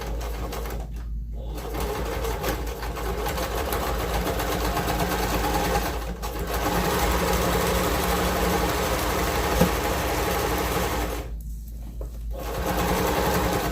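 Electric sewing machine stitching a hem in fabric, running in spells: it stops briefly about a second in and again around six seconds, then pauses for about a second near the end before starting again.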